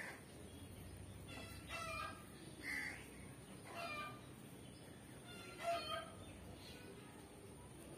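Birds calling in short repeated calls, about one a second, over a faint steady background.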